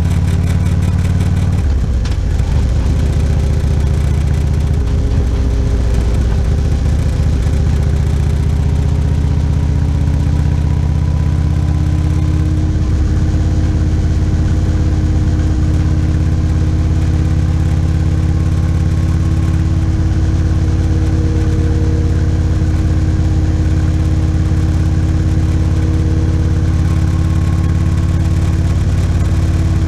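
Motorcycle engine running steadily at cruising speed on an open road, its note changing slightly about two seconds in and again around twelve seconds.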